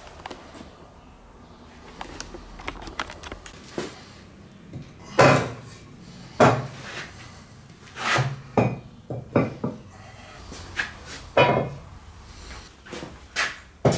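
Heavy steel parts, a cast-iron cylinder head and brake discs, set down and shifted on a steel frame: a string of irregular clanks and knocks. The loudest come about five, six and a half, eight and eleven and a half seconds in. They are weights being laid on sheet-metal panels while the glue sets.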